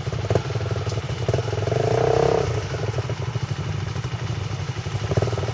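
Small dirt bike engine running at low speed with a rapid putter. The engine note rises briefly about two seconds in, then settles back.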